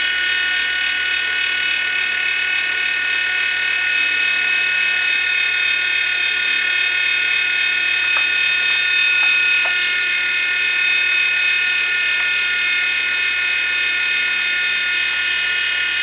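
U809 infrared coaxial toy helicopter's small electric rotor motors whirring steadily at a high pitch, held in the hand. The motors run on and don't want to stop, which the owner takes for a fault.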